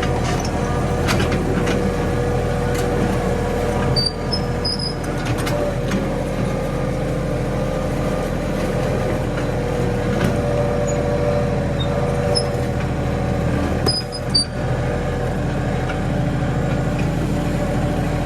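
Mahindra 1626 compact tractor's diesel engine running steadily as the tractor is driven, with a few brief high squeaks about four seconds in and again around fourteen seconds.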